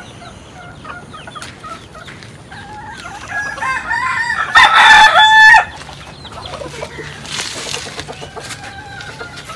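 Village chickens clucking, building to a loud, drawn-out call lasting about a second, roughly five seconds in.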